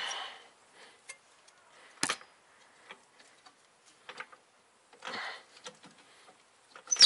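Scattered light metallic clicks and taps from hand work on a car's front suspension, with one sharper click about two seconds in and a couple of soft rustles.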